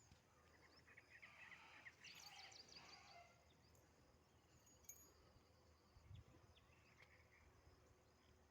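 Faint outdoor background noise, with clusters of short, high chirps in the first few seconds.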